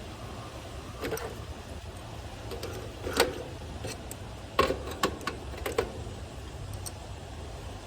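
A handful of sharp clicks and knocks, the loudest about three seconds in and a cluster around five seconds, from hardware being handled, over a steady low rumble.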